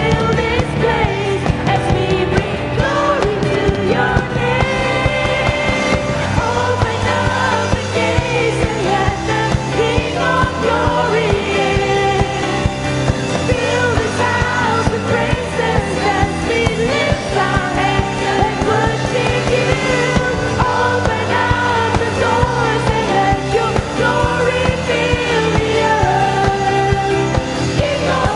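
Worship band playing a praise song with singing over a steady bass line.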